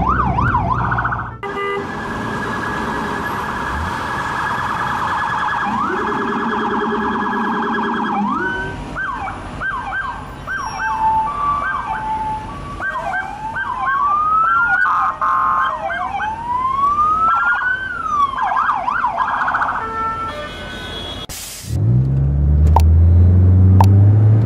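Police car siren, switching between long rising-and-falling wails and fast yelping warbles. It cuts off abruptly near the end, and a car engine is heard revving up.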